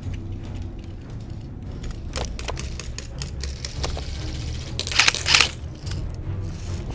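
Scattered sharp clicks of airsoft gunfire, then a short, loud rattling burst about five seconds in, over a steady low rumble.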